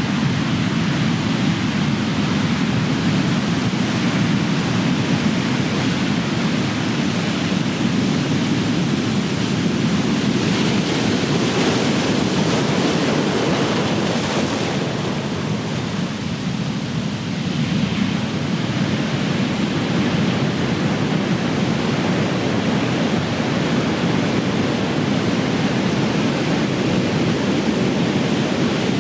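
Big ocean waves breaking and crashing on the shore in a continuous heavy rush of surf, with a brighter hissing swell about halfway through.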